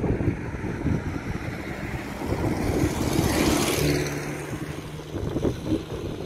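Wind buffeting the microphone, with a car passing by on the road, loudest about three and a half seconds in.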